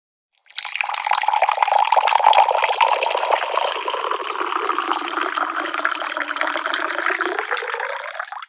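Water poured steadily into a cup, starting about half a second in. The splashing rises in pitch as the cup fills, then stops abruptly at the end.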